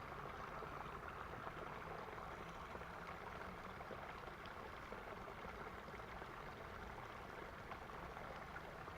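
Faint, steady trickle of shallow creek water running on.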